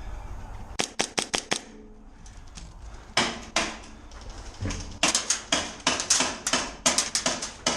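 Airsoft guns firing: sharp cracking shots in quick strings, a fast run of about five shots near the start, a couple more, then a dense volley of shots through the second half.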